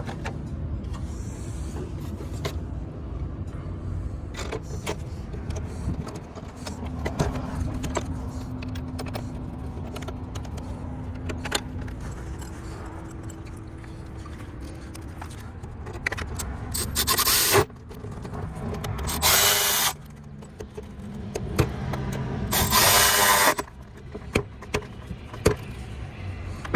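Tools at work in a car's engine bay: scattered clicks and knocks of wrenches and parts, then three short runs of a power driver, each about a second long, over a steady low rumble.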